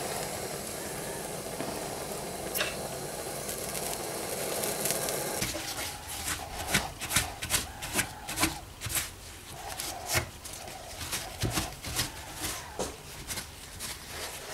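A gas soldering torch hissing steadily, which stops about five and a half seconds in. Then a run of irregular clicks and light knocks follows, about two or three a second.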